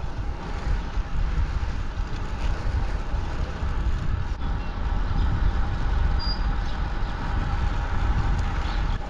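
Wind rushing over the microphone of a moving bicycle: a steady noise, heaviest at the low end and rising and falling in gusts. A brief high chirp about six seconds in.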